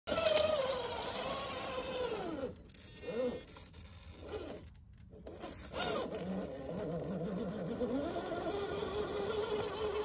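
A 1/10-scale RC rock crawler's Holmes Hobbies Crawlmaster Sport 13-turn brushed electric motor and geared transmission whining under throttle as it climbs rock. The whine falls in pitch and nearly drops out for about three seconds with a couple of short blips, then rises again and holds steady through the second half.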